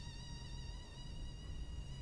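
Recorded mosquito whine: a thin, steady buzzing tone with many overtones that wavers slightly in pitch, used as a prank sound.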